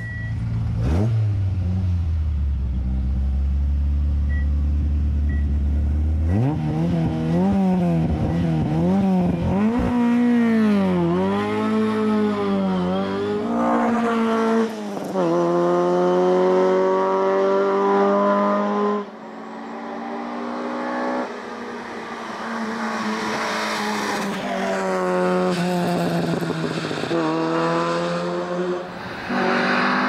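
Ford Escort Mk1 RS2000 race car engine: a deep, steady rumble for the first few seconds, then the engine revving hard, its pitch climbing and dropping back again and again as the car accelerates through the gears.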